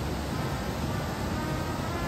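Steady rush of a shallow mountain river running over rocks. A faint high tone sits over it from about halfway through.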